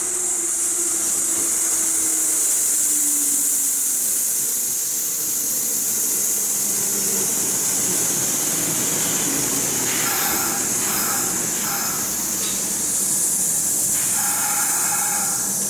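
A Kintetsu red-and-white electric train running alongside the platform, with a steady high hiss from its wheels on the rails and a motor whine that falls in pitch over the first few seconds.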